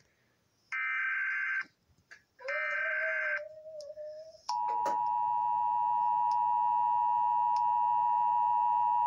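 Emergency Alert System broadcast tones: two short, screechy data bursts of the alert header, about a second each. About four and a half seconds in, the steady two-tone EAS attention signal starts and holds.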